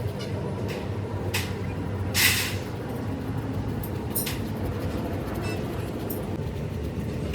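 A steady low mechanical rumble with several short hissing noises over it. The loudest hiss comes about two seconds in and lasts about a third of a second.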